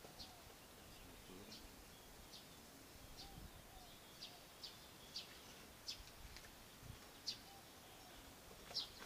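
Quiet outdoor ambience with faint, short, high bird chirps every second or so.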